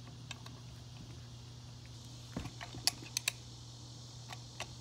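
Scattered light metallic clicks and taps of wrenches working the threaded pulley installer tool that presses the power steering pulley onto the pump shaft, over a steady low hum.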